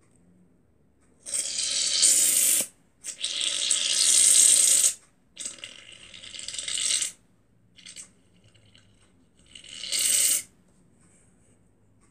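Aerosol can of shaving cream hissing as foam is sprayed out, in four bursts of a second or two each.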